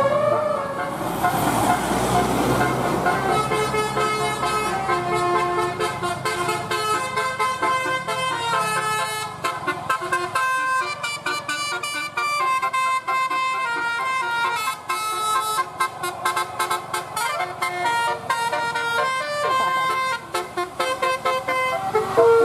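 Basuri telolet bus horn, a set of electrically switched air horns, playing a quick melody of held and stepped notes. A rush of noise sits under the first few seconds.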